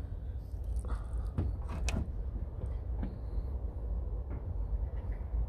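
Dark fabric curtain in a camper van being pulled back from a side window: a few soft rustles and light knocks, most of them about one to two seconds in, over a steady low rumble.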